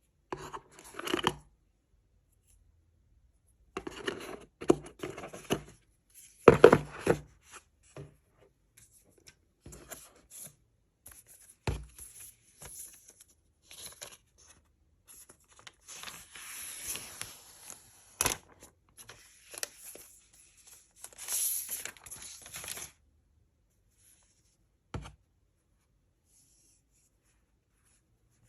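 Packaging being torn and crinkled in irregular bursts, with pauses between them and a few sharp clicks.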